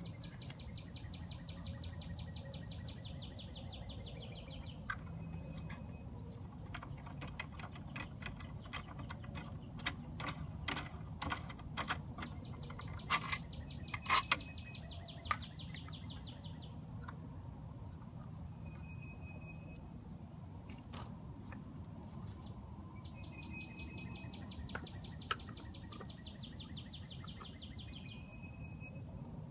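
A songbird singing a rapid, even trill three times, each a few seconds long, over a steady low rumble. In the middle come light clicks and knocks as the tiller's handle parts are handled, the loudest about halfway through.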